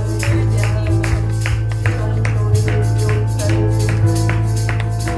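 Live band music with guitar, keyboard and drums playing a steady beat.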